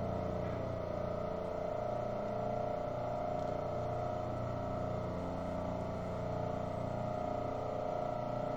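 Steady machine hum at a constant pitch, like a small motor or appliance running, with no change in level.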